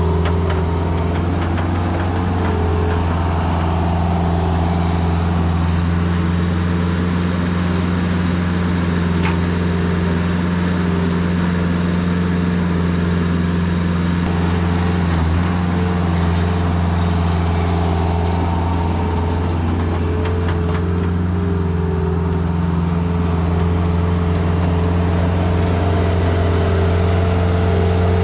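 New Holland L553 skid steer's Kubota diesel engine running at a steady speed, dipping briefly about halfway through.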